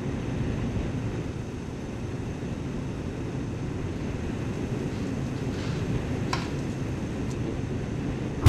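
Strong blizzard wind blowing over the microphone, a steady low rumble.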